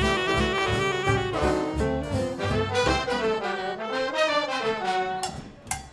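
Swing big band playing live, with a saxophone section and trombones and trumpets in full ensemble. The music drops away briefly near the end.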